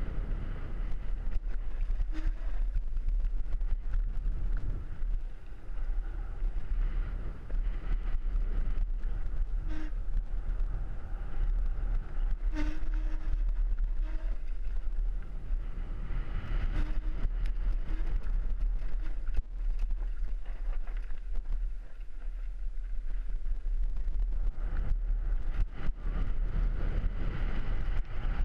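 Wind buffeting a helmet-mounted GoPro Hero3 microphone, a steady deep rumble, mixed with the noise of mountain bike tyres rolling fast over a dry dirt trail. A few sharp knocks and rattles come as the bike hits bumps.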